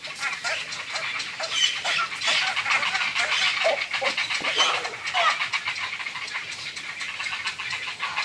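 Grey heron nestlings in a breeding colony calling: a dense chatter of many overlapping calls mixed with rapid clicks.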